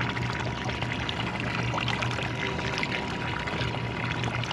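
Water sloshing and lightly splashing around a striped bass held by the jaw at a boat's side while it is revived, with a steady low hum underneath.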